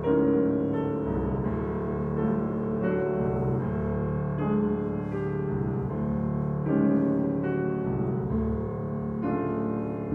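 Grand piano playing alone, chords struck every second or so and left to ring.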